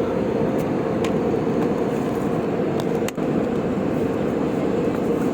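Steady cabin noise inside a LATAM Airbus A320-200: an even rushing with a constant hum and a few faint ticks.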